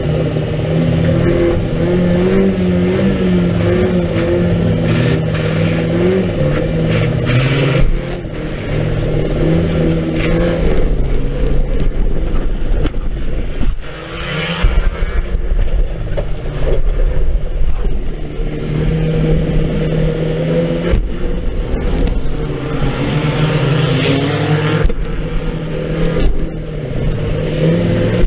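Banger race car's engine heard from inside its stripped-out cabin, revving up and falling back repeatedly as it is driven. The bare metal shell rattles throughout, with several sharp knocks, and the engine drops off briefly about halfway through.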